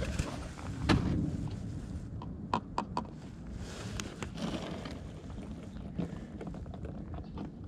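Handling noises around a plastic motor-oil jug: a thump about a second in, then a quick run of sharp clicks a little after two and a half seconds, over a low rustle.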